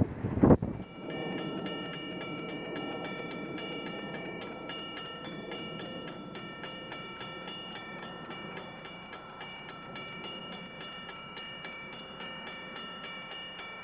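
A BNSF freight train's cars rumble past, with a couple of heavy thumps in the first second. Then a railroad grade-crossing warning bell rings steadily with quick, even strokes, the signal that a train is approaching the crossing.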